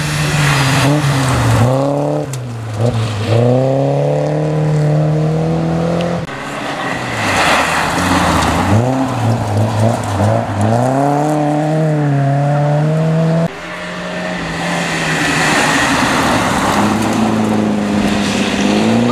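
Volvo rally cars on a gravel stage, one after another: each engine revs up hard and drops back with gear changes, over the hiss of gravel thrown up by the tyres.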